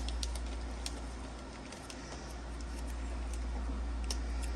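A few light clicks and taps of small parts being handled and set into a 3D-printed plastic parts box, over a steady low hum.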